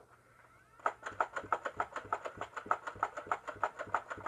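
Nerf Stryfe flywheel blaster firing darts in quick succession: a rapid, even string of sharp clicks, about six a second, starting about a second in.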